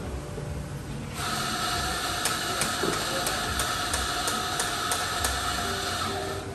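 Electric coffee grinder running for about five seconds, a steady whirring hum with faint regular ticks, starting about a second in and cutting off near the end.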